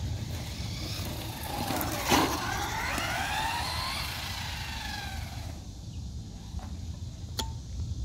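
Traxxas Slash 4X4 Ultimate RC truck's brushless electric motor whining, the pitch rising and falling as it speeds up and slows over a few seconds, with a sharp knock about two seconds in. A single click near the end.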